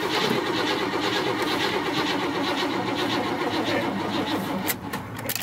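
Buick Electra Estate wagon's starter cranking the engine in a steady, rhythmic pulse without it catching, cutting off near the end with a few clicks. The car has sat a long time and its battery is wearing down.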